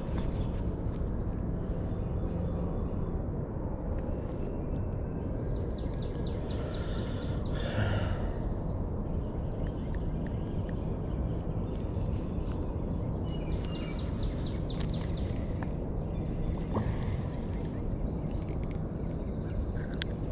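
Outdoor riverside ambience: a steady low rushing noise with a thin, steady high whine throughout, a few faint clicks and a couple of brief soft noises.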